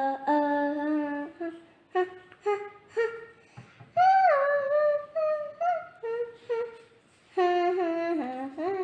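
A young girl humming a tune to herself, in short phrases of held notes with sliding pitch.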